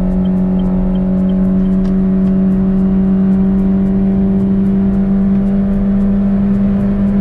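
Honda Brio's four-cylinder engine held at high revs under a hard throttle pull through an aftermarket Ironcrafts Pro Circuit exhaust. It gives a loud, steady drone whose pitch creeps up slowly.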